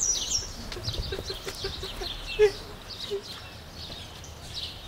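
Small birds chirping, with a run of short lower notes from about a second in, the loudest near the middle.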